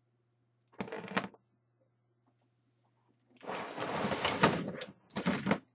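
Plastic action figures knocking and rattling against each other and the sides of a hard plastic storage tub as a hand rummages among them. A short rattle comes about a second in, and a longer, louder bout of clattering follows in the second half.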